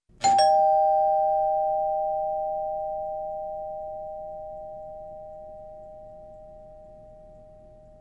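Two-tone doorbell chime: a higher note and then a lower one, struck almost together just after the start. Both ring on and slowly fade away.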